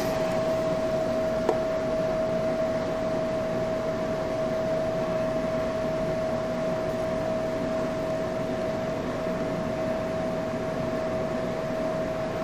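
Steady machine hum with a constant mid-pitched whine, and one faint click about one and a half seconds in.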